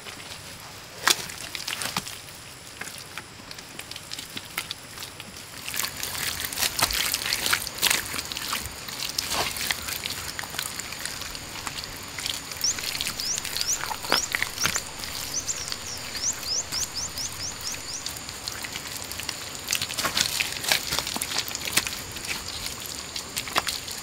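Hands pressing and smoothing wet clay, with soft wet squelches and slaps. Partway through, a run of quick rising chirps, about three a second, sounds over a steady high-pitched drone.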